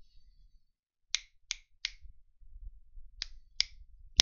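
Six short, sharp clicks in two groups of three, each group spaced about a third of a second apart, the first group a little over a second in and the second from about three seconds in, the last click the loudest, over a faint low hum.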